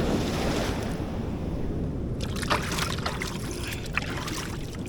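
Sea water washing over shoreline rocks, with a steady low rumble of wind and surf on the microphone. From about two seconds in comes a run of small splashes and trickles.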